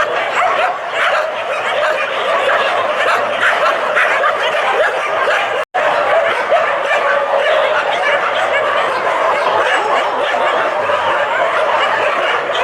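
Many dogs barking and yelping at once in a dense, continuous din, with a brief break about halfway through.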